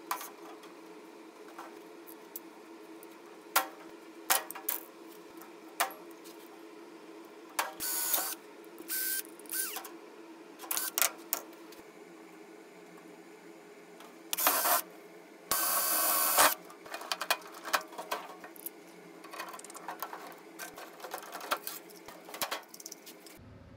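Galvanized sheet-metal brackets being handled and fitted on a steel workbench: scattered metallic clinks and knocks, with several short bursts of noise, the longest about a second, over a steady low hum.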